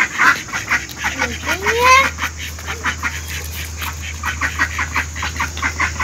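Domestic ducks quacking in a fast run of short, repeated calls as they are chased and scatter.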